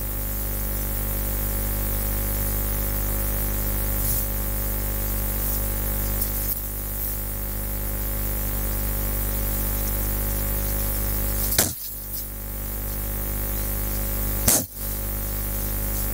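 Steady electrical hum and buzz from a public-address microphone system. Two sharp knocks come about three seconds apart in the second half, each followed by a brief dropout in the sound.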